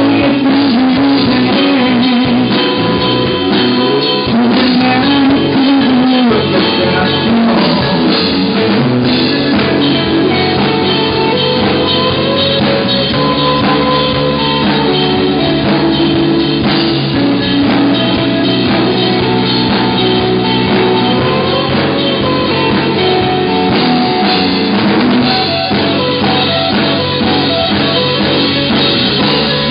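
Live rock band playing a loud passage without clear singing: drum kit keeping a steady beat under electric guitar, with some notes bent and held.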